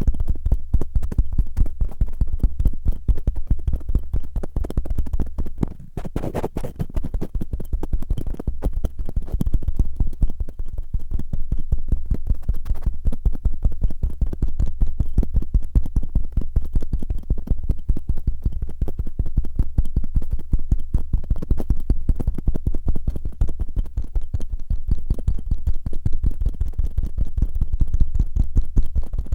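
Cotton swab rubbed fast and roughly against an ASMR microphone's ear, a dense run of scratchy strokes close up. It dips briefly about six seconds in, then picks up again.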